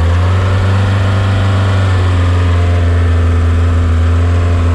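VW T3 van's engine running steadily at raised, held revs during a stationary test run. The van had stopped driving on the road and its owner is testing the engine.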